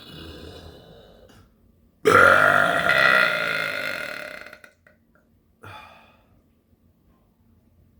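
A person burping: one long, loud burp of about two and a half seconds, a quieter sound before it and a short one after.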